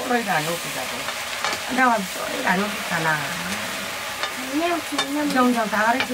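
Chopped greens sizzling in a black wok over a wood fire while a metal ladle stirs and scrapes them, with light clicks of the ladle against the pan. A person's voice is heard at times over the frying.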